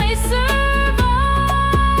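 Slow song: a voice holds a long sung note on the word "I", wavering at first and then steady, over sustained low chords and a slow beat of drum strikes.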